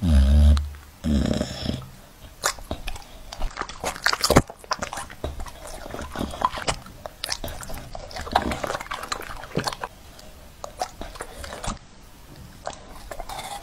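A dog eating soft fruit off a fork, with wet chewing, licking and mouth smacks in many short clicks. A loud, low sound comes in the first two seconds.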